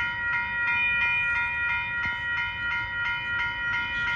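Railroad grade crossing warning bell ringing in rapid, even strokes, each a clang of several bright tones: the crossing signal is active because a train is approaching.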